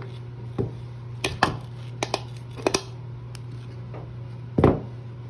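Light clicks and knocks of slow-close hinge parts being handled and fitted into place, a few in quick pairs, with one louder knock near the end. A steady low hum runs underneath.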